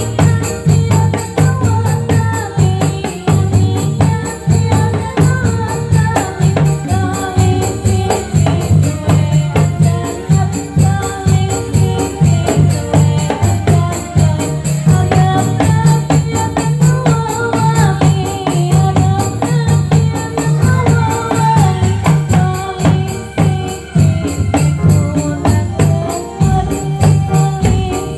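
Live Dolalak music: frame drums beating a steady, driving rhythm with a constant jingling over it and a sung melody on top.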